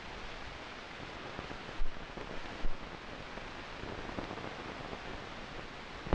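Steady hiss and crackle of an old film print's soundtrack running with no program sound on it, broken by two brief low thumps a little under a second apart.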